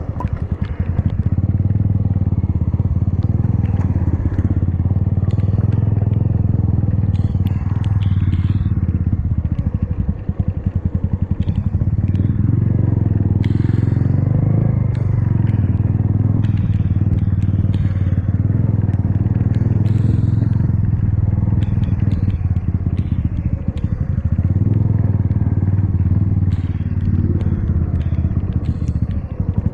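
Motorcycle engine running while the bike is ridden at a steady pace on a wet road, with scattered small crackles and clicks over it. The engine eases off briefly twice, about ten seconds in and again later.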